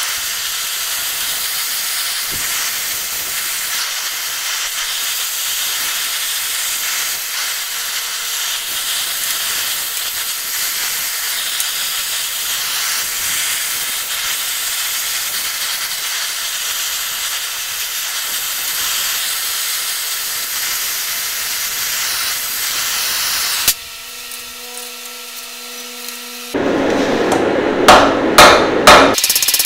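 Oxy-fuel cutting/heating torch hissing steadily as it heats twisted steel, cutting off suddenly about 24 seconds in. Near the end, four quick hammer blows on hot steel on the anvil.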